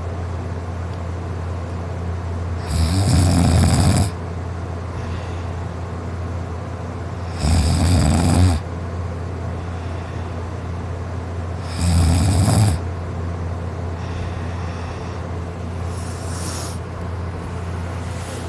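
A person asleep on his back snoring loudly: three loud snores about four seconds apart, each lasting about a second, then two fainter ones near the end, over a steady low hum.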